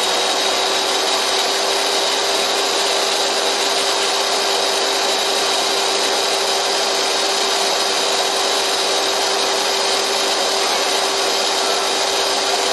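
Electric drill running at a steady speed with a soldering iron tip in its chuck, while a flat file rasps against the spinning tip to clean and reshape it. It makes a constant whine over a rasping hiss.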